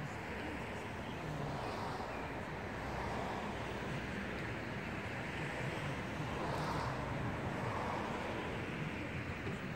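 Steady vehicle rumble with a broad noisy hiss, swelling slightly a few times.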